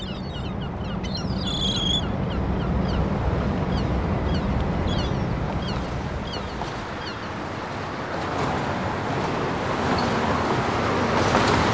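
Harbour sound effect: a steady rush of waves and wind, with many short, high bird chirps over it during the first half. The rush swells slightly toward the end.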